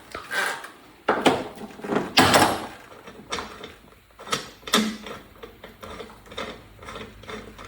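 Irregular metal clicks, scrapes and knocks of parts being handled, the loudest about two seconds in, as the castellated axle nut is worked off its thread by hand and the washers behind it come off.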